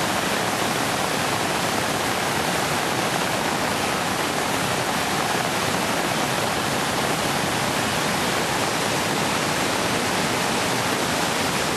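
Floodwater of a swollen river rushing over rocks and a dam spillway: a steady, unbroken rush of noise.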